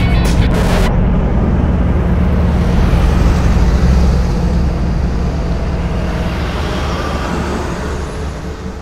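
Heavy truck engine running steadily, deep and even, with a hiss above it. It grows quieter over the last couple of seconds.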